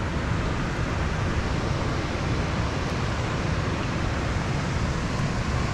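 Steady rushing of water released from a dam outlet into the river, an even noise with no breaks or changes.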